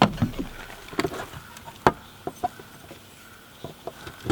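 A few separate sharp clicks and knocks, about six in four seconds, the loudest right at the start: handling of tools and pipe, with the angle grinder not yet running.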